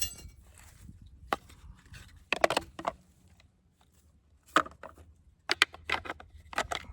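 Scattered clicks and knocks of chainsaw parts being handled as the bar and chain of a Stihl MS 250 are fitted back on, some coming in quick clusters.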